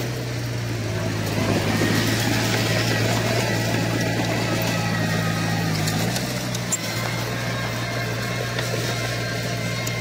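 Diesel engine of a Komatsu crawler bulldozer running steadily. It grows a little louder about a second and a half in, and its engine note drops slightly about six seconds in.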